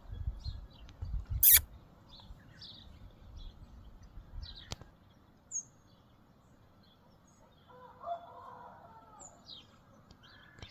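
Small birds chirping and tweeting in short scattered calls over low background noise, with one sharp loud click about a second and a half in and a fainter click a few seconds later.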